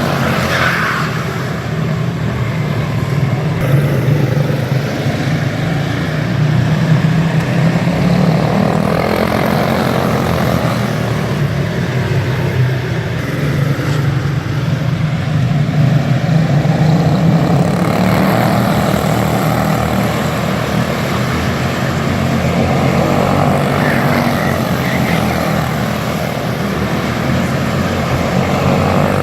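Modified pulling tractor's engine running hard at high revs through a pull, a loud steady drone whose pitch shifts a little as it goes.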